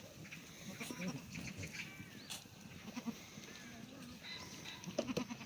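Korean black goats in their yard: faint, scattered bleats with a few small knocks, and a louder burst of calls near the end.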